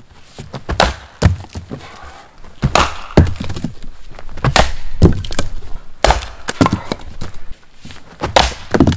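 Axes splitting firewood on chopping blocks: a series of about ten sharp wooden chops and cracks, irregularly spaced.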